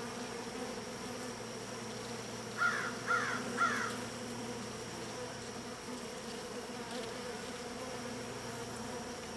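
Honeybees buzzing around an open hive during a frame inspection: a steady hum. About two and a half seconds in, a bird calls three times in quick succession.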